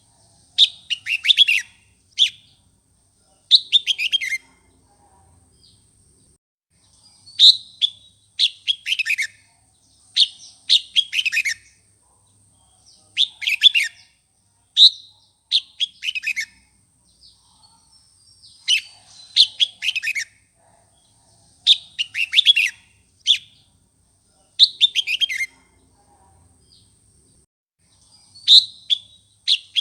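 Red-whiskered bulbul singing: short phrases of quick, falling whistled notes, repeated every second or so with brief pauses between groups.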